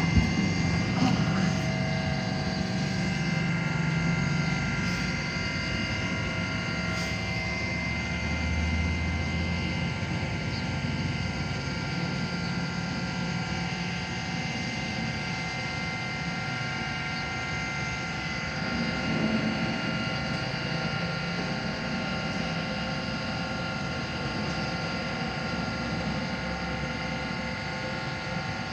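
Steady mechanical drone with several high, even whining tones held throughout, from a running motor or engine.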